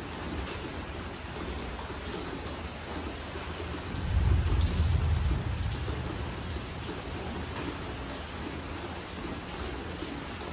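Steady rain falling and pattering on hard surfaces. A low rumble swells about four seconds in and fades over the next two seconds.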